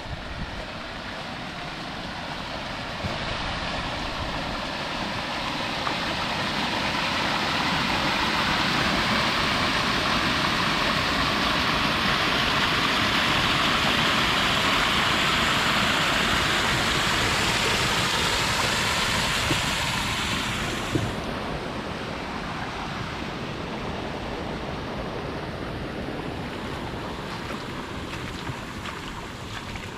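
Heavy rain falling, a steady hiss that swells over the first several seconds, then eases suddenly about two-thirds of the way through to a lighter, steady patter.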